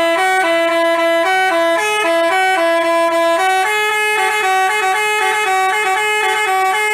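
Telolet basuri bus horn playing a quick tune, two buzzy tones sounding together and stepping from note to note without a break.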